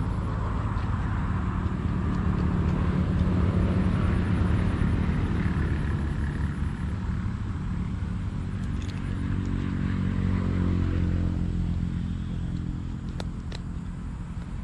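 An engine running steadily with a low hum, swelling louder twice and easing off near the end.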